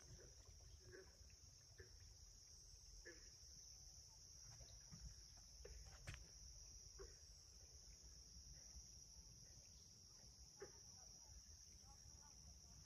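Faint, steady high-pitched insect chorus of crickets or katydids, with a few soft scattered clicks and crunches.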